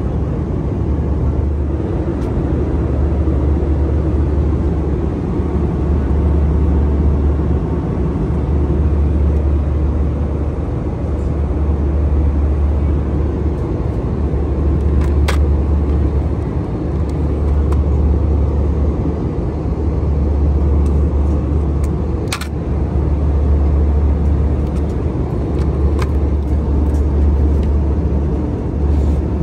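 Steady cabin noise inside an Airbus A320: a loud low drone with rushing air. Two or three sharp clicks in the second half as the seatback fittings are handled.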